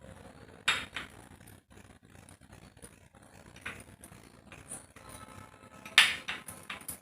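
Spoon stirring honey and ground cinnamon in a small bowl, the spoon clinking sharply against the bowl about a second in and again near the end, with lighter taps between.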